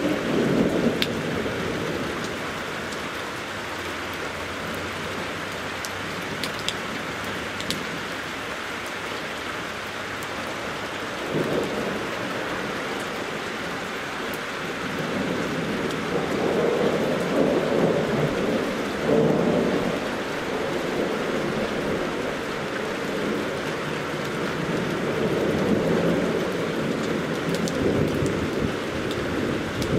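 Steady rain falling, with a few sharp drips, and low rolls of thunder swelling and fading several times.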